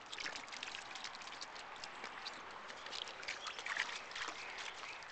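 Splashing steps through shallow creek water, with many small irregular splashes and drips over the running water of the stream.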